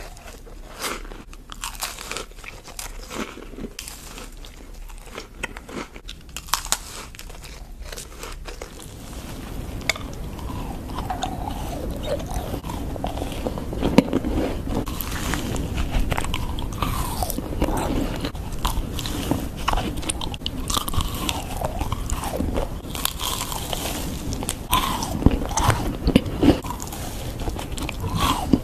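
Close-miked eating sounds of macarons: crisp shells crunching as they are bitten, then chewing with wet mouth clicks. The sound becomes louder and fuller about nine seconds in.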